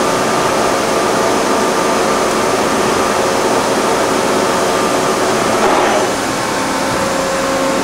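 Niigata HN50A CNC horizontal machining center running under power: a steady mechanical hum with several held whining tones from its motors and drives. About six seconds in there is a short swell, after which the running note drops a little and changes pitch.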